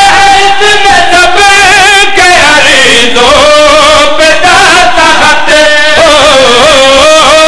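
A man singing a line of Urdu-Punjabi verse in a drawn-out chanting style, holding long notes that waver and bend, amplified through a microphone.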